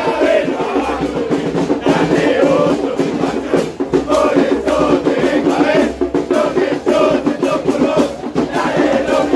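Crowd of football supporters singing a terrace chant in chorus, loud and close, the voices holding long sung notes without a break.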